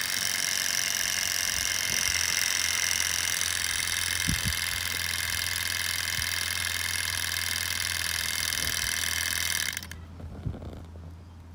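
Small model hot-air (Stirling) engine running, a steady high-pitched mechanical whirr over a low hum. It cuts off suddenly near the end, leaving a few soft knocks.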